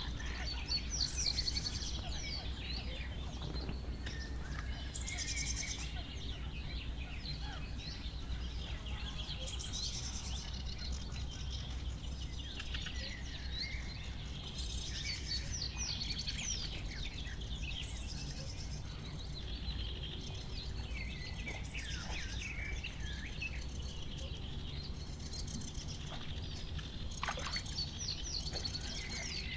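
Several songbirds singing from a lakeside reed bed, one short chirping phrase after another, overlapping throughout, over a low steady rumble of outdoor ambience.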